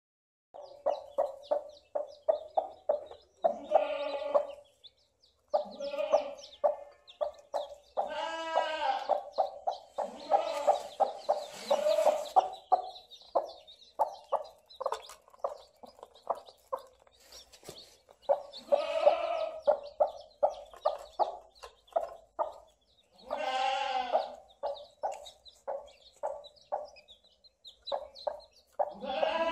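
A naked-neck mother hen brooding her newly hatched chicks, clucking in quick runs of short clucks broken by several longer drawn-out calls. Chicks peep faintly among the clucks.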